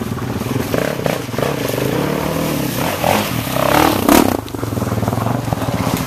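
Trail motorcycle engine running as the bike comes down to a river ford, with a louder stretch of rising revs about three to four and a half seconds in, over the steady rush of the flowing stream.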